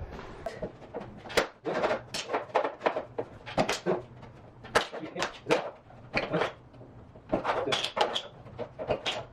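Offcut of vinyl click plank being cut up into spacers: a run of short, sharp cracks and clicks at an irregular pace of about two or three a second.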